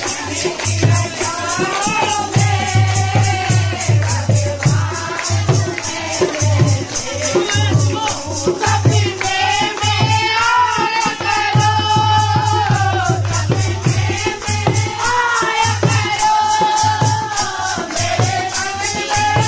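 A group of women singing a sangeet folk song together, with the melody rising and falling, over a dholak hand drum beaten in a steady rhythm. A jingling, rattle-like percussion keeps a fast, even beat alongside.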